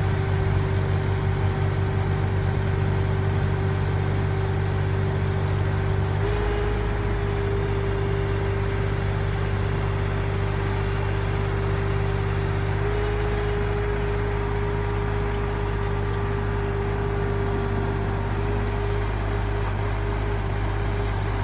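Mini skid steer loader's engine running steadily with a constant hum and a steady higher whine, driving the hydraulic auger. The sound shifts abruptly about six and again about thirteen seconds in.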